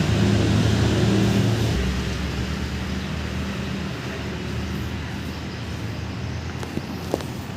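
Two-stroke brush cutter engine running, loud for about two seconds and then dropping to a lower, quieter run. Two short clicks come near the end.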